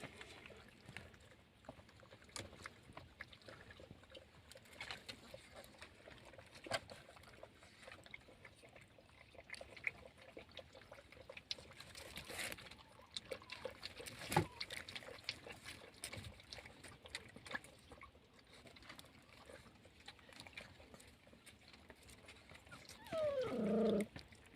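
Faint scattered ticks and small knocks, then near the end a louder whine from a puppy, about a second long and falling in pitch.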